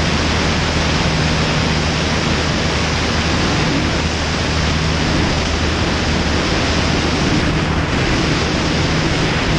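Steady rush of airflow over a wing-strut-mounted camera in flight, with the even drone of the Ikarus C42 ultralight's engine and propeller underneath.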